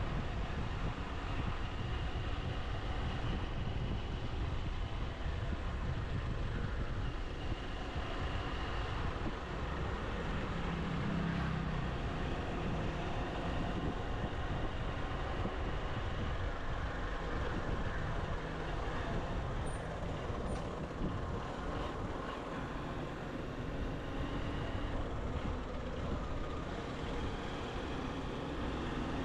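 Motorcycle engine running steadily on the move, with road and wind noise from riding.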